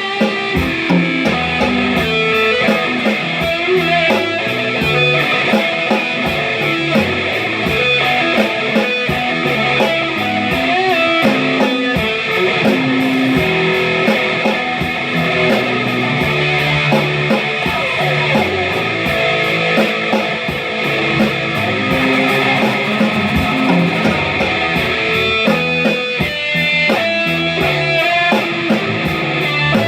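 Guitar music playing without a break, a stream of changing picked and strummed notes.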